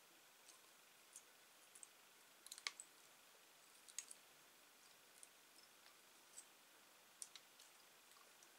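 Faint, irregular small clicks of steel combination pliers on soft wire as the wire is gripped and twisted, about one a second, with a sharper cluster about a third of the way in and another about halfway.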